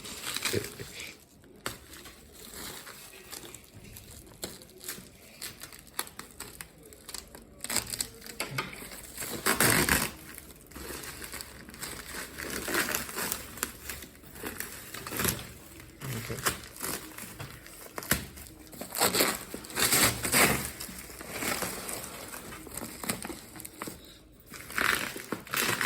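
Packing material being crumpled and pulled off a parcel during unboxing: irregular crinkling and rustling, with louder bursts about ten seconds in and again near twenty seconds.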